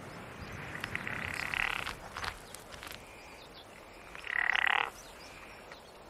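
Two buzzy calls of a rutting chamois buck, a fainter one about a second in and a louder, shorter one about four seconds in, with a few faint clicks between them.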